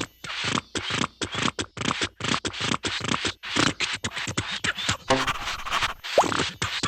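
Rapid, repeated scratching strokes, about five or six a second, a cartoon sound effect. A brief break comes about six seconds in, then a quick rising squeak.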